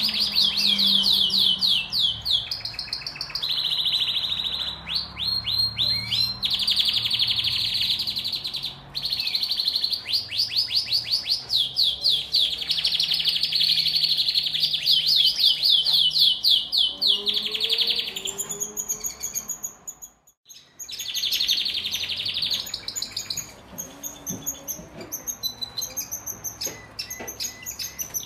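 Male domestic canary singing its courtship song: long runs of rapid rolling trills, each held for a second or two, that break off briefly about twenty seconds in and then return as sparser, higher chirps and trills.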